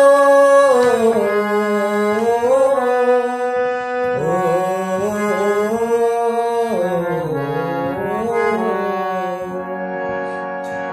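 Harmonium playing the song's melody between sung lines, a reedy sustained tone moving over a lower held note.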